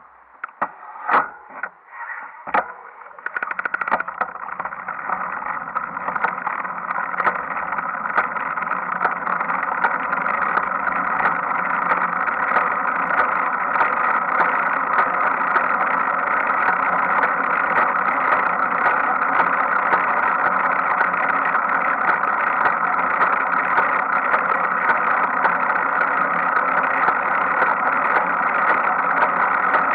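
Bicycle rear wheel and drivetrain spinning: a few knocks in the first three seconds, then a steady whir that builds up over the next several seconds and holds. The owner hears a knocking from the rear sprocket that has persisted since last year.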